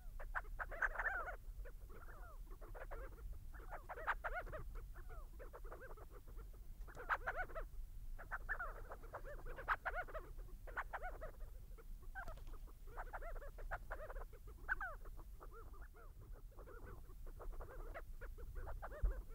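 A flock of sandgrouse calling: clusters of short, pitched calls come every one to three seconds, over a steady low rumble.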